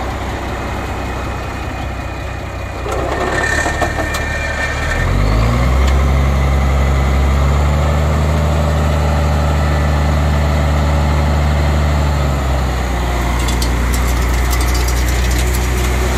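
Military 6x6 dump truck's engine idling, then revved up about five seconds in and held at higher speed for about seven seconds to raise the dump bed, before dropping back to idle. Near the end there is a light clattering as gravel slides out of the tipped bed.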